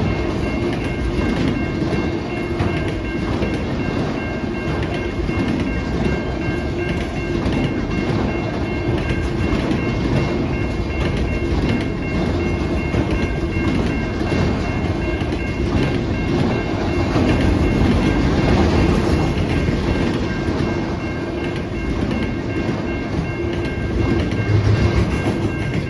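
CN freight train cars rolling through a grade crossing, with wheels clacking over the rail joints. The crossing bell keeps ringing at a few fixed pitches over the train noise. The rolling noise starts to fade right at the end as the last cars pass.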